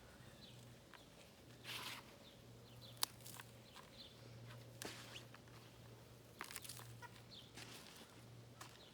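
Hands digging through potting soil in a container: faint, scattered rustles and scrapes of dirt, with one sharp click about three seconds in.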